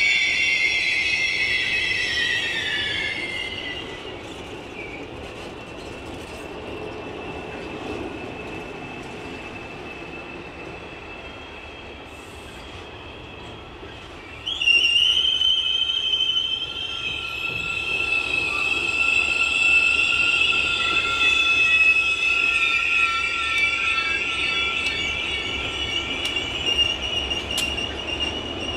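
Passenger train wheels squealing against the rail on a curve over a low rolling rumble. A high squeal fades out in the first few seconds, then a new squeal cuts in suddenly about halfway through and carries on, wavering, to the end.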